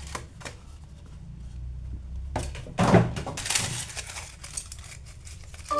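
Aluminium foil crinkling and rustling as a foil-wrapped toy figure is handled, with a dull thunk about three seconds in as a cardboard box is set down on the table.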